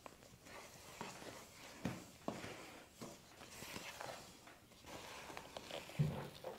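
Faint stirring of thick muffin batter with a wooden spoon in a stainless steel bowl: soft scraping with a few light knocks against the bowl, and a dull thump near the end.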